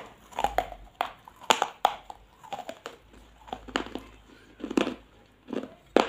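A lightly wetted, thick terracotta clay bowl being crunched and chewed in the mouth: a run of sharp crunches, roughly two a second.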